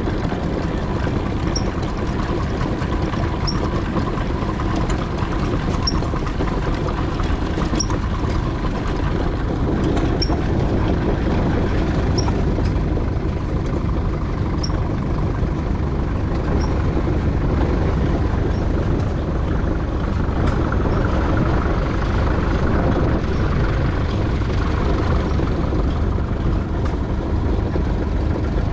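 Steady rumble and clatter of a 4-inch scale McLaren steam traction engine on the move, heard from aboard.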